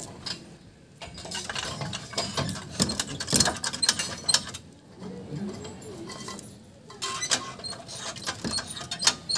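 Hydraulic floor jack being worked with its long steel handle: irregular metal clicks and rattles as the handle is fitted into the jack and moved.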